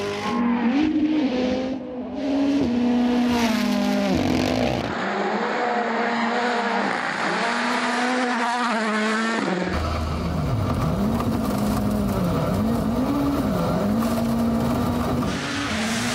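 Rally cars at full speed on a stage, engines revving up and dropping back repeatedly through gear changes and corners. The sound changes abruptly three times, as separate shots are cut together.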